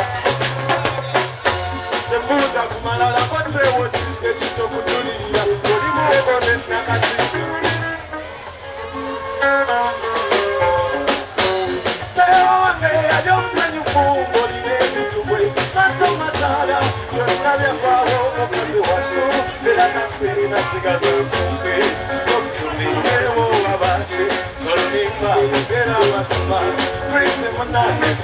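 Live stage music: a man singing into a microphone over a band with drum kit and bass. The music thins out briefly about eight seconds in and comes back in with a loud hit.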